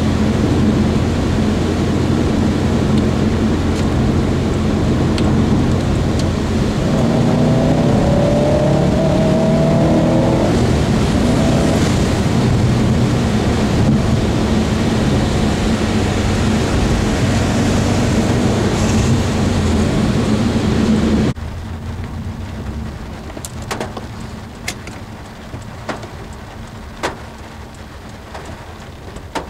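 Steady engine and wet-tyre road noise inside a Subaru Impreza's cabin, driving in heavy rain. About two-thirds through, it cuts to the car stopped: rain falls on the roof, and a few loud, sharp drops of water from overhead power lines land with a clanking sound.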